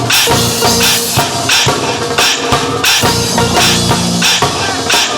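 Live reggae band playing without vocals: drum kit with snare strikes about twice a second over a bass line.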